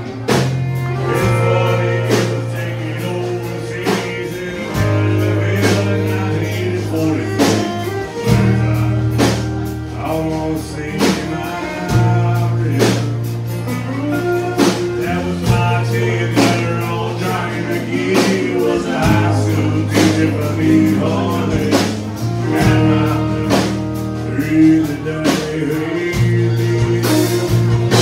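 Live country band playing: strummed acoustic guitar, bass and drums keeping a steady beat, with a man singing. The bass holds each note for a few seconds before moving on.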